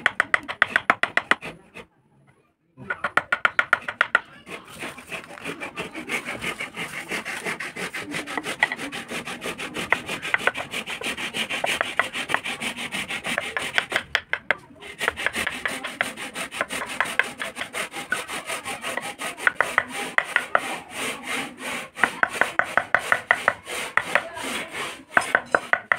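Flat hand file rubbed quickly back and forth over carved wood, a dense run of scraping strokes. There is a short pause near the start and another about halfway, and the strokes turn crisper and louder near the end.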